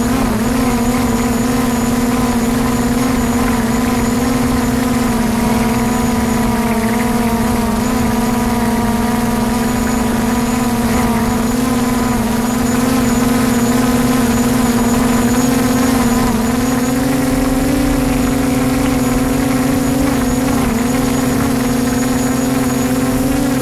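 DJI Mavic drone's propellers buzzing steadily in flight, with a slight step up in pitch about two-thirds of the way through.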